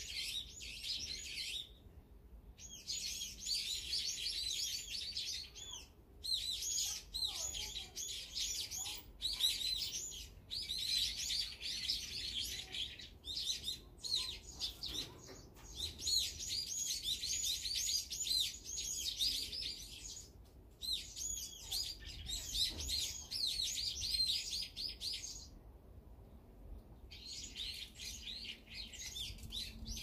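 Small songbirds chirping rapidly, many calls overlapping, in bouts of a few seconds each with short pauses between.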